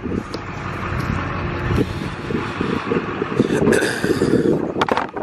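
Footsteps swishing through roadside grass and crop stubble, with wind rumbling on the microphone, and a few sharp knocks near the end.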